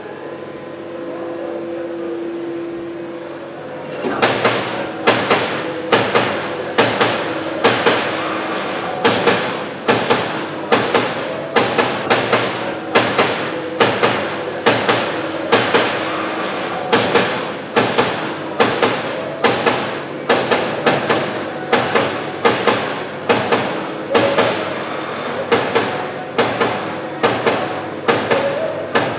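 CNC punch press running: a steady machine hum with level tones, then from about four seconds in the punch strikes the sheet metal over and over, sharp hits at about two a second.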